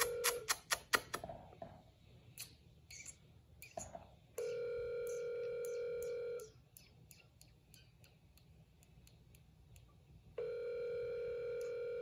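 A steady electronic beep tone sounds twice, each time for about two seconds, about six seconds apart. Scattered light clicks fall in between.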